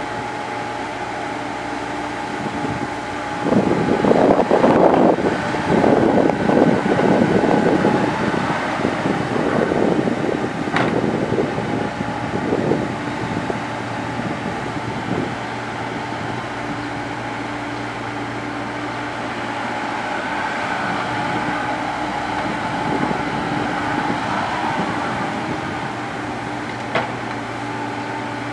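Komatsu PC70 excavator's diesel engine running steadily under hydraulic work. A louder, rough stretch of working noise runs from about three to thirteen seconds in, and a couple of sharp metallic clanks are heard, one about eleven seconds in and one near the end.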